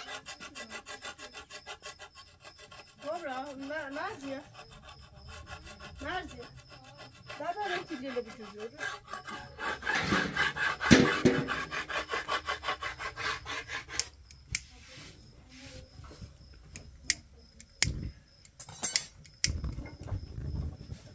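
Fast, even rubbing or scraping strokes, several a second, going on for most of the first fourteen seconds, with a voice calling out over them a few times. After that the strokes stop, leaving scattered knocks and a few low thumps.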